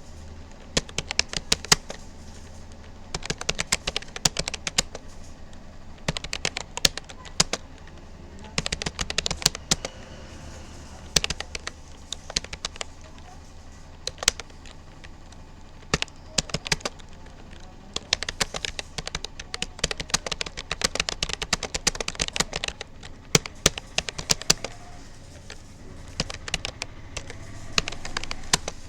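Typing on a Rapoo computer keyboard: uneven runs of rapid key clicks with short pauses between bursts, over a steady low hum.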